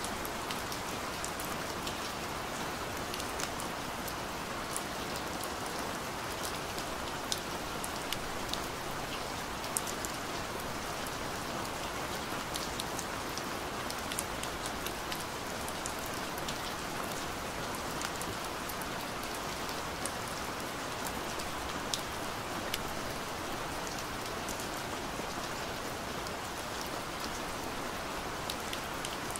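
Steady rain falling, an even hiss with many scattered sharp raindrop ticks.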